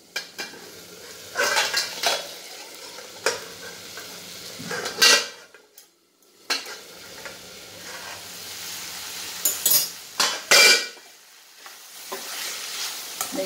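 Stainless-steel pan lid and utensils clattering several times over a low sizzle of simmering long-bean curry as the lid is lifted off. Near the end a spatula stirs and scrapes the beans in the steel pan.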